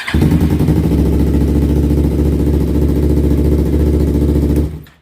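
2019 Yamaha R3's parallel-twin engine firing up and idling steadily, then switched off and stopping abruptly near the end. The bike now starts and runs, with error code 19 cleared after a burnt ignition-switch wire was repaired.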